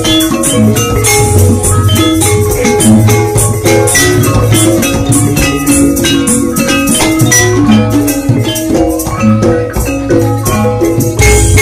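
Javanese gamelan played loud: thick metal keys of sarons and demungs struck hard with mallets in a fast, even run of ringing notes, over gongs and kendang drum. A deep low stroke comes in near the end.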